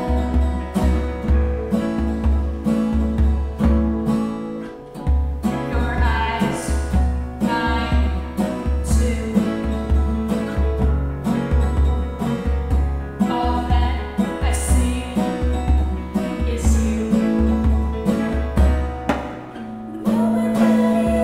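A band's original song: guitar over a steady pulsing bass, with the bass pulse stopping briefly twice.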